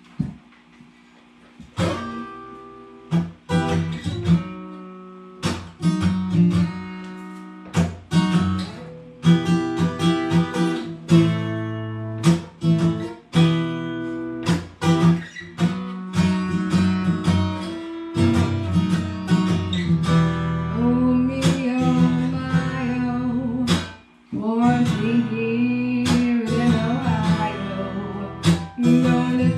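Acoustic guitar strummed in a rhythmic song intro, starting about two seconds in, with a brief break near the end before the chords resume.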